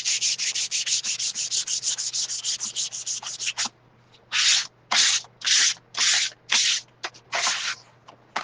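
Sandpaper rubbed by hand over a painted wooden cutout to rough up and distress the paint. Quick, short strokes, about eight a second, for the first three and a half seconds; then, after a brief pause, slower, longer strokes about two a second.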